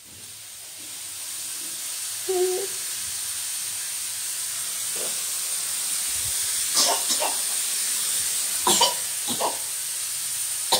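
A steady hiss rises over the first couple of seconds and then holds. A short hummed voice comes about two seconds in, and a few brief sharp sounds come in the second half.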